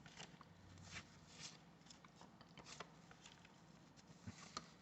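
Near silence with faint, scattered clicks and soft rustles of baseball trading cards being handled and flipped through.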